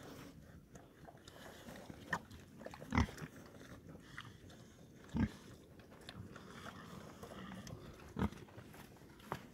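A young pig feeding at a metal feeder: a few short grunts and knocks, the loudest about three seconds and five seconds in.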